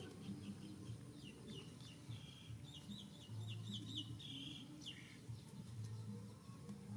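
Faint bird chirping: a quick run of short, high, falling notes between about one and five seconds in.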